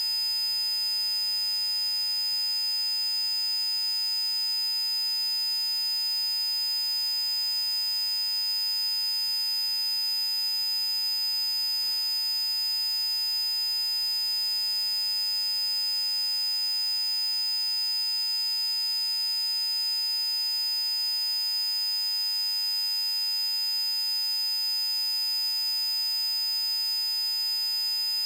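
Synthesized sine-wave tones from a PC Zapper frequency set, held perfectly steady: a bright high pure tone with a fainter, lower one beneath it.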